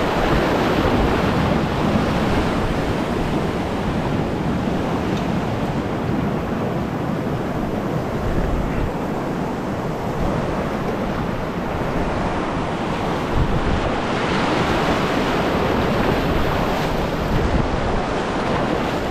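Rushing whitewater around a kayak running a small low-water rapid and the riffles below it, with some wind noise on the microphone.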